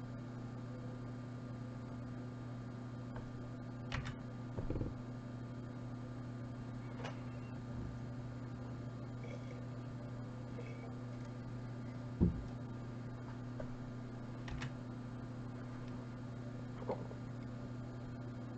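Steady low electrical hum, with a few soft clicks and knocks scattered through it, the loudest about two-thirds of the way in.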